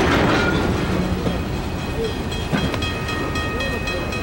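Covered hopper wagons of a freight train rolling slowly past: a steady low rumble of wheels on track, with a few sharp clacks over the rail joints and a thin high wheel squeal starting about two and a half seconds in.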